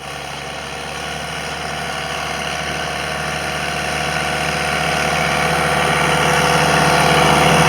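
Tractor diesel engine running steadily, gradually getting louder.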